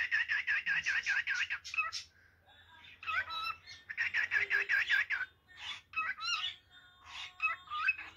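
Male cockatiel singing to call his mate: two fast runs of repeated chirps, about eight a second, near the start and again around the middle, broken up by single whistled notes.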